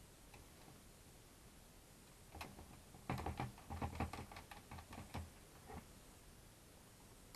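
A quick flurry of small plastic clicks and taps: the little plastic motor cover being handled and fitted back onto the quadcopter's plastic arm. It starts about two seconds in and dies away a few seconds later.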